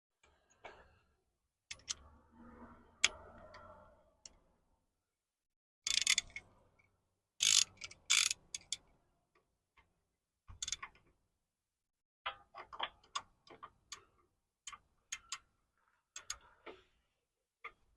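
Hand tools working a power steering hose fitting: irregular metallic clicks and clinks, some in quick clusters, with a muffled rustle and scrape early on.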